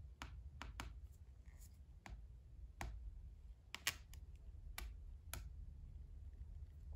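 Small shungite stone tapped against a tablet's glass touchscreen: about eight faint, light clicks at irregular intervals over a low steady hum.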